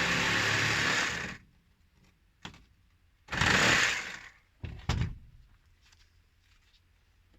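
A power tool cutting through a metal plumbing fitting runs and stops about a second and a half in, then runs again in one short burst a few seconds later. Sharp knocks come between and after the runs as the cut piece is handled.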